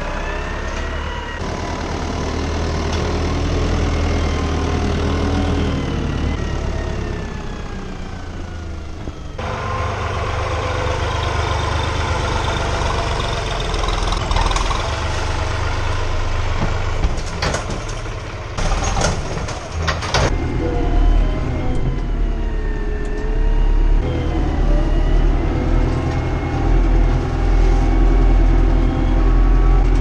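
Diesel farm tractor engines running and revving under load, the Deutz-Fahr Agroplus 85 with its front loader levelling and compacting a corn silage heap and the New Holland TN70DA tipping a trailer of chopped corn. A cluster of sharp knocks comes a little past halfway.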